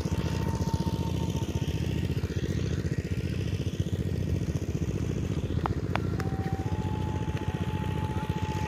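Engine-driven machine running steadily nearby, a fast, even beat of engine firing pulses with a thin steady whine above it.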